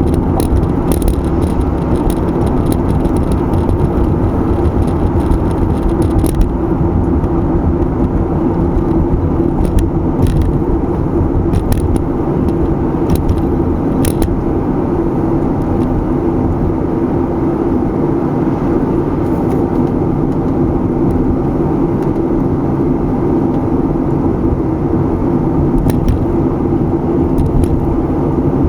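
Car driving at speed: steady road and tyre noise with engine hum. A few faint ticks come in the first half.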